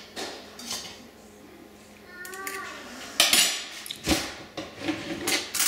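A small fork clinking and scraping against a steamer pot and plate as steamed potato dumplings are lifted out and served. A few soft clicks come first, then a run of sharp, louder clinks and clatters from about three seconds in.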